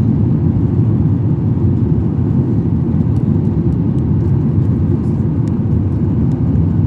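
Aircraft taking off, its engines and airflow making a steady low rumble.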